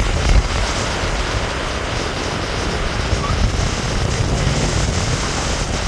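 A fast-flowing river rushing steadily, with a deep low rumble under the hiss of the water.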